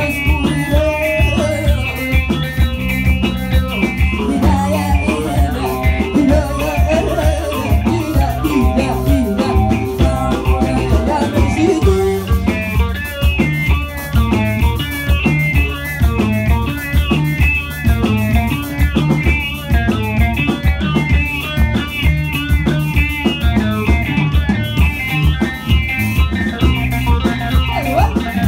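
Live Mauritanian griot band playing: a busy electric guitar lead over bass guitar and a drum kit keeping a steady beat, with a woman singing in the first part.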